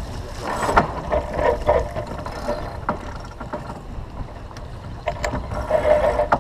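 A sailboat's sheet winch clicking as it is cranked to trim the headsail, over wind rumbling on the microphone.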